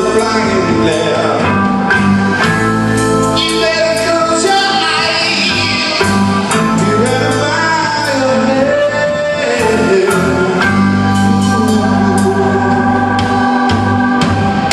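Live rock band: a male singer sings long gliding notes over sustained Hammond XK3 organ chords, with drums and cymbals.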